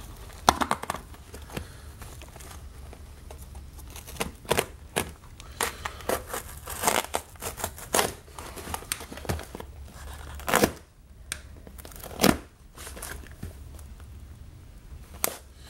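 Clear packing tape being picked at and torn from a cardboard shipping box by hand: a run of short, irregular crackling rips, a few louder than the rest.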